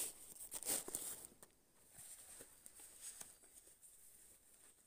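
Close rustling and scraping of nylon backpack fabric as a dry bag is pressed into the pack and the drawstring is pulled, loudest in the first second or so, then fainter scattered rustles and small clicks.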